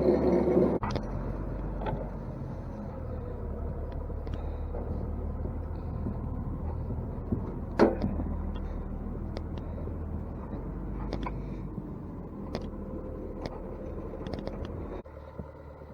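Grain mill running loudly, then cutting out under a second in, leaving a low motor rumble with scattered clicks and knocks that shuts off abruptly near the end.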